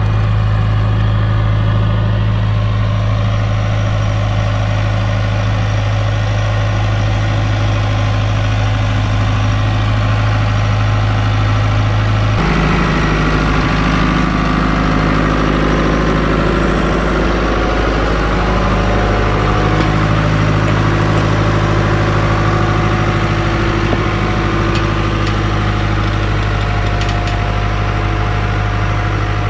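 Diesel farm tractor engine running steadily under load as it pulls a disc plough through the soil. The engine sound changes abruptly about twelve seconds in, with more clatter in the middle range after.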